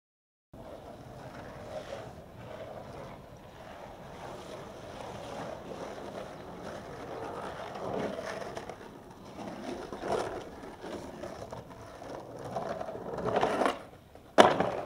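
Skateboard wheels rolling over rough concrete, swelling and fading a few times, with a sharp, loud clack of the board near the end.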